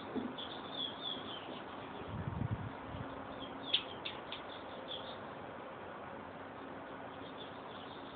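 Small birds chirping: quick high chirps in clusters, several in the first second or so and again around four seconds in. A brief low rumble comes just after two seconds.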